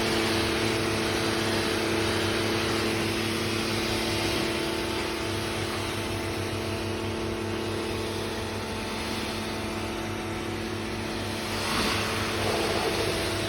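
DGIVOVO electric pressure washer running at full pressure: a steady motor-and-pump hum under the loud hiss of the water jet.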